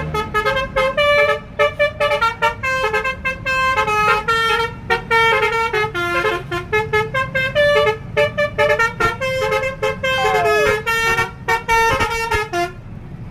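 Basuri V4 telolet musical horn playing a quick melody of short, stuttering notes, with a brief falling slide about ten and a half seconds in, then cutting off just before the end.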